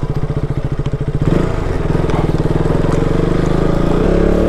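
KTM 200 motorcycle's single-cylinder engine pulling at low revs while the bike is ridden slowly. At first it runs with distinct, evenly spaced firing pulses. About a second in, the note changes to a smoother, steadier run, and near the end the revs begin to rise.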